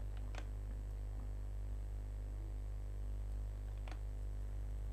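Steady low electrical hum on the recording microphone, with two short clicks from a computer mouse, one about half a second in and one near the end.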